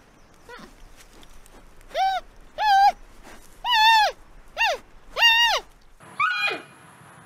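Giant panda calling: a run of five loud, high-pitched calls about a second apart, each rising then falling in pitch. Near the end the background changes abruptly and another call follows.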